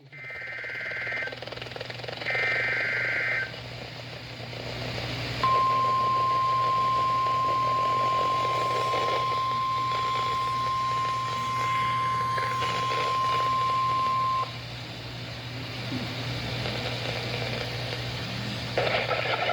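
NOAA Weather Radio Required Weekly Test signal: two one-second bursts of SAME data header tones, then the 1050 Hz weather alert tone held steady for about nine seconds. Radio hiss and a steady low hum lie under it.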